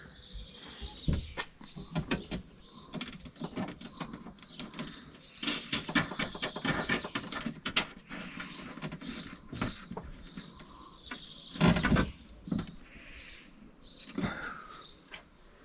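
Irregular clicks, taps and knocks from a gloved hand working on parts inside a Nissan Qashqai's open tailgate, with a quick run of clicks partway through and one louder knock later on. Birds chirp in the background.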